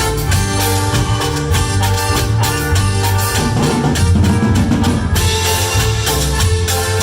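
Cumbia band music: an instrumental passage with a bass line, sustained melody notes and a steady beat on drums and percussion, which gets busier for a moment around the middle.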